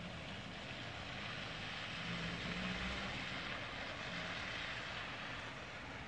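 Steady hiss of heavy wet snow falling on a wet street, with a low rumble that swells and fades about halfway through.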